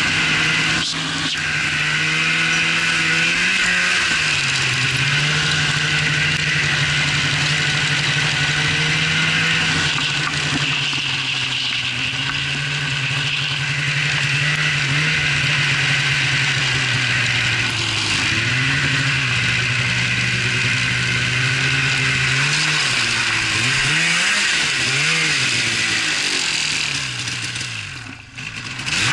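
Snowmobile engine running under throttle, its pitch rising and falling as the rider speeds up and eases off. Near the end the engine drops off sharply for a moment, then picks up again.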